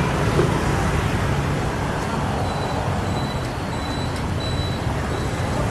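Steady street traffic noise with a low engine rumble, and a faint high-pitched tone that comes and goes in the middle.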